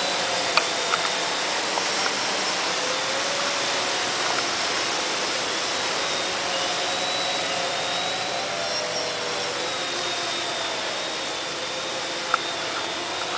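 Cheerson CX-20 quadcopter's motors and propellers whirring in flight, their pitch wavering as the craft works against gusty wind, over a steady rush of wind on the microphone. A few brief clicks, one sharper about twelve seconds in.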